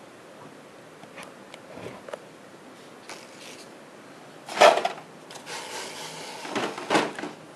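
Hands handling things on a tabletop: a few light clicks, then a louder knock about halfway through, followed by a couple of seconds of rubbing and scraping that ends in another knock.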